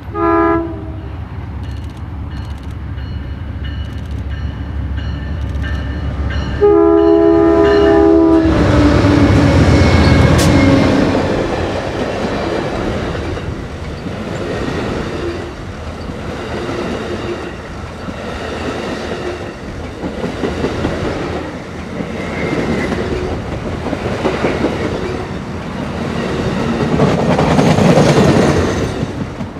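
Amtrak passenger train led by a GE Genesis diesel locomotive: a short toot of its chime horn, then a longer horn blast about seven seconds in. The locomotive then passes close with a loud diesel rumble, followed by a string of Superliner bilevel cars rolling by, their wheels clacking rhythmically.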